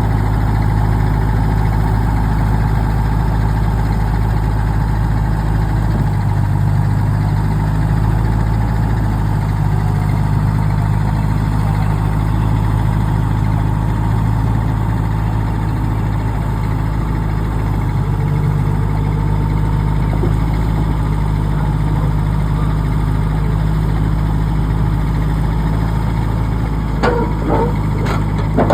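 Heavy-equipment diesel engine idling steadily, with a few sharp knocks near the end.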